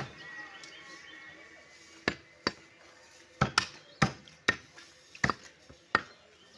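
A butcher's knife chopping through beef, about a dozen sharp, irregular strikes, coming faster in the second half.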